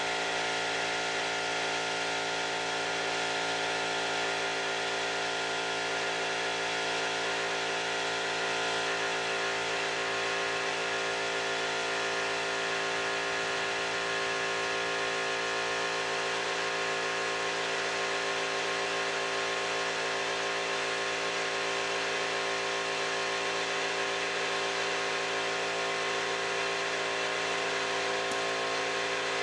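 Paint spray equipment applying primer to a car body panel: a steady hiss of spray over a steady mechanical hum from the machine supplying the air.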